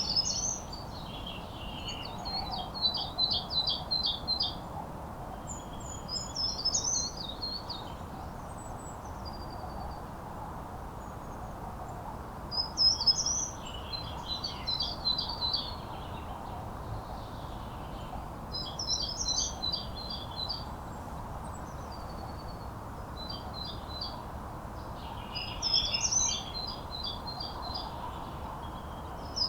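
A songbird sings short phrases of a few high notes ending in a fast trill, repeated every few seconds, over a steady low background noise.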